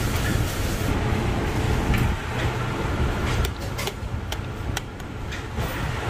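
Steel chopsticks clicking and scraping against a metal bowl of cold noodles as they are stirred, over a steady low rumble of room noise.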